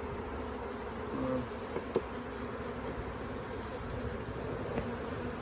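Steady buzzing hum of a honey bee swarm, many bees flying around the boxed swarm and the fence.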